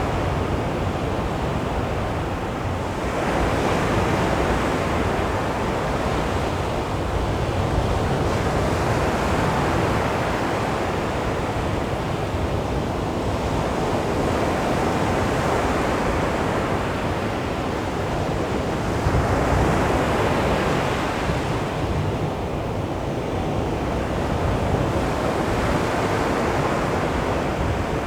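Calm sea waves washing onto a beach: a steady rush of surf that swells and eases every few seconds as each wave breaks and draws back.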